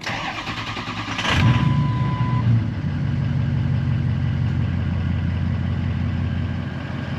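Ford 6.0L Powerstroke V8 turbo-diesel heard from the cab: it cranks for about a second, catches and settles into a steady idle. A short steady beep sounds just after it starts.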